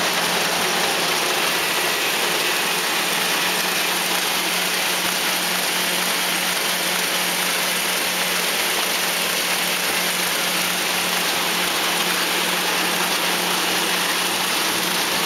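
Offset printing press with inline numbering, perforating and collating units running: a steady, dense mechanical whirr with a constant low hum underneath.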